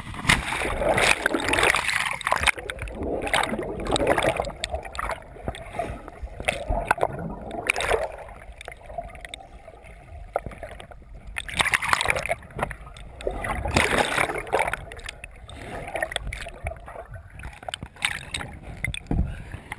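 Water splashing and gurgling around a kayak being paddled, in irregular surges, heard through a camera mounted at the waterline that dips in and out of the water.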